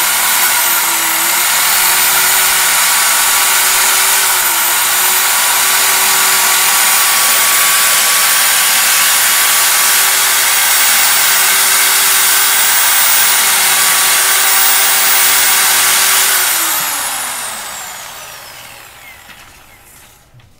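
Bosch corded drill running at full speed with a kitchen knife blade held against its spinning chuck: a steady motor whine over a harsh grinding hiss. The speed dips briefly about a second and about four seconds in, and about 16 seconds in the drill is switched off and spins down, its pitch falling away over a few seconds.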